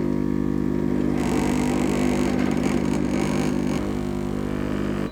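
Capsule coffee machine's pump running with a loud, steady hum while brewing a mug, a noisy rush of coffee dispensing over it from about a second in until nearly four seconds; the machine cuts off abruptly at the end.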